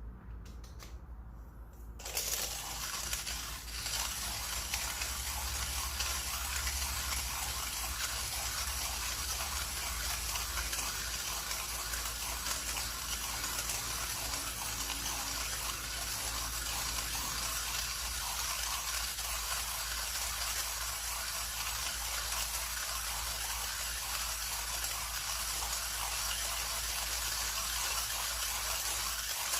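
Millwright hand coffee grinder being cranked, its burrs crunching coffee beans at a fine espresso setting: a steady, continuous grinding that starts about two seconds in.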